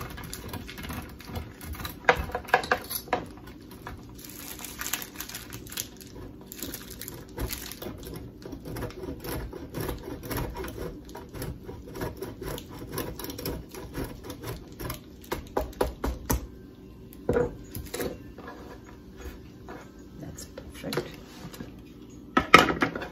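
A block of Parmesan cheese being grated by hand on a stainless steel grater: a long run of quick rasping scrapes, with a few sharp knocks and clinks near the end.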